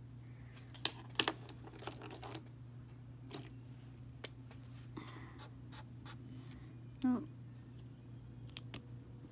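Scattered clicks and taps of felt-tip markers being handled: caps pulled off and snapped back on, and markers set down on a wooden table, over a steady low hum.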